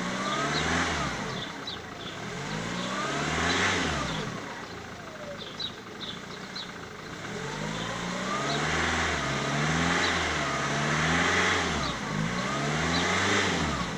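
Ford Mondeo Mk3 TDCi turbo-diesel engine being revved up and let fall back about six times, twice early on and four times in quicker succession later. The engine is the one the owner is asking about for a strange sound, with no power below 2000 rpm and black smoke.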